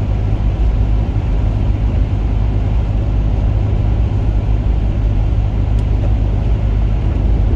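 Honda Accord Sport driving, a steady low rumble of road and engine noise that holds even throughout.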